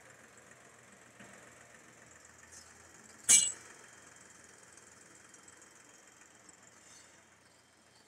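Escorts 435 tractor engine running faintly and steadily. A single sharp knock a little over three seconds in.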